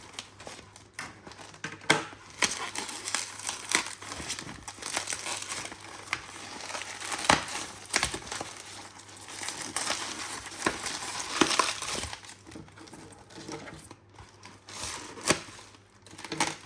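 Parcel packaging being unwrapped by hand: crinkling, rustling plastic and packing material with scattered clicks and knocks.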